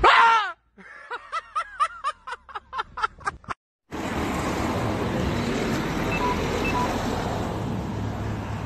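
A short shout, then a quick run of about ten high-pitched laughing syllables. After a cut, a steady rumble of street traffic with two short beeps a little past the middle.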